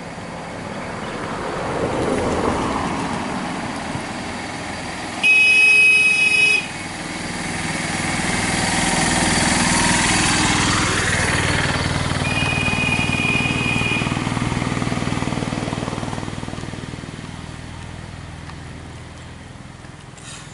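Motor traffic passing on a road: an auto-rickshaw and then a car go by, engine noise swelling and fading. A loud horn honk comes about five seconds in, and a shorter one about twelve seconds in.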